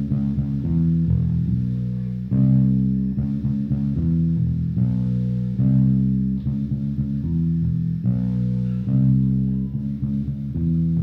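Live band starting an improvised song: bass and guitar playing sustained chords that change every second or so, starting abruptly.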